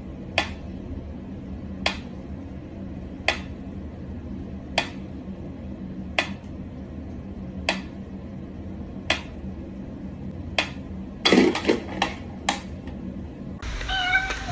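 Mechanical pendulum metronome ticking slowly, about one sharp tick every one and a half seconds. About eleven seconds in, a quick run of louder clicks and knocks breaks the beat.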